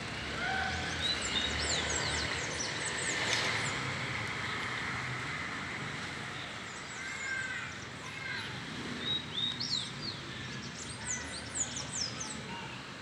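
A flock of birds chirping together in a dense evening chorus: many short, high, falling chirps overlapping, busiest about a second in and again near the end, over a steady low background rumble.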